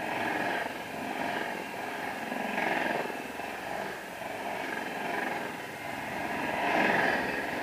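Passenger train coaches rolling past at speed close by: a steady rumble and clatter of steel wheels on the rails, swelling to its loudest near the end.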